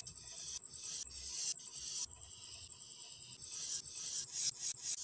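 Felt-tip marker drawn in strokes along a ruler on paper, making repeated scratchy rubs. The strokes are longer in the first half and become shorter and quicker, about three or four a second, in the second half.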